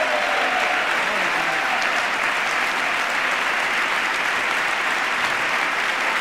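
Large audience applauding steadily, an even wash of many hands clapping that holds at one level throughout.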